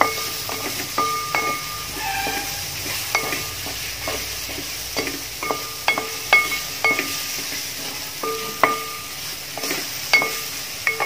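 Wooden spatula stirring thick bilimbi pickle masala in a large metal pot, with irregular scrapes and knocks against the pot that make it ring briefly, over a faint steady sizzle from the heated pot.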